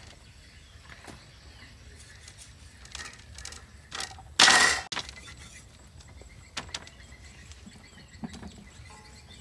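Meat cleaver striking a raw pig's leg on a wooden chopping board: a few light knocks, then one loud, sudden chop about four and a half seconds in that stops after about half a second, and a couple of smaller knocks after it.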